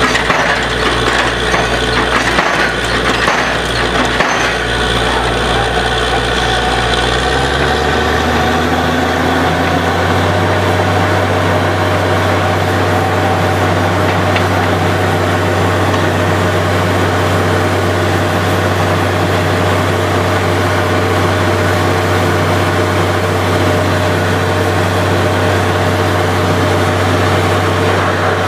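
Borewell drilling rig's engine running heavily, with rattling and knocking from the rig for the first several seconds. About eight to ten seconds in, the engine speed rises, and it then runs as a steady, even drone.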